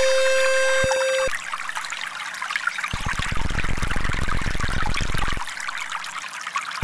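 Recorded trickling, running water, laid under the video's frequency tones. A steady electronic tone is held for about the first second and then cuts off, leaving only the water. The water grows louder and denser for a stretch in the middle.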